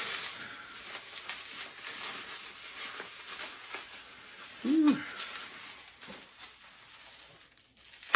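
Rustling and crinkling of packaging being unwrapped by hand, fading out over the second half. A short hummed "hmm" just under five seconds in, and a sharp knock near the end, the loudest sound here.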